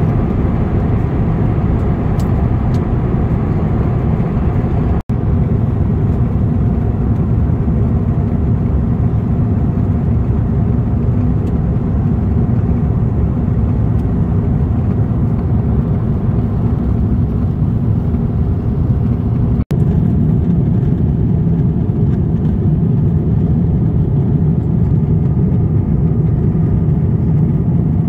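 Steady low rumble and rushing of a jet airliner's cabin in flight: engine and airflow noise heard from a passenger seat. It cuts out for a split second twice.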